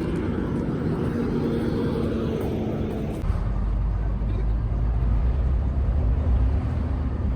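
Vehicle noise: a steady hum with a faint held tone, giving way about three seconds in to a deeper low rumble.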